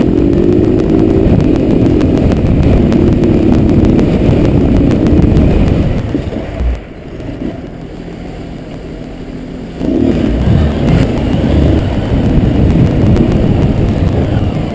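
Motorcycle engine running with wind rush over a helmet-mounted camera while riding. About six seconds in it drops to a quieter idle as the bike stops in traffic, and near ten seconds it gets loud again as the rider accelerates away.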